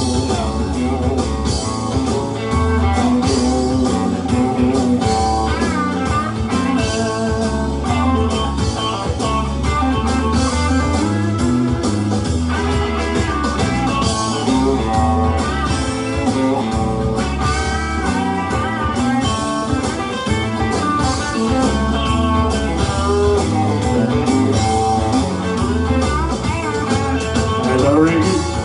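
Instrumental break of a slow country ballad played by a band, a guitar carrying the melody over steady bass and drums.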